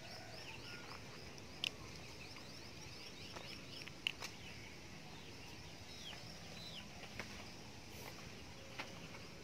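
Small birds chirping repeatedly: many short, high, falling notes. Two sharp clicks stand out, about a second and a half in and about four seconds in.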